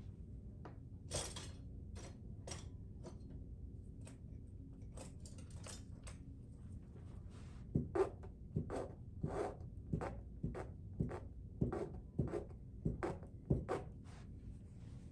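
Palette knife laying thick oil paint onto a stretched canvas: a few light scattered taps at first, then about a dozen short scraping strokes, roughly two a second, over the second half. A low steady hum runs underneath.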